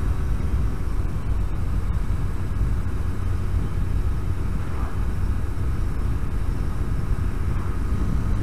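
Yamaha RD125LC YPVS liquid-cooled two-stroke single running at a steady cruise on the road, under a heavy, even rumble of wind on the microphone.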